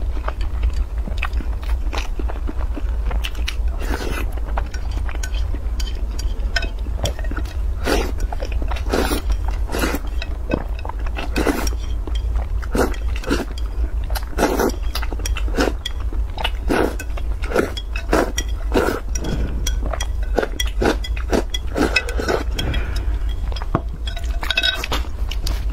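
Close-miked eating sounds: noodles slurped and chewed, with chopsticks clicking against the bowl in many short, irregular strokes, over a steady low hum.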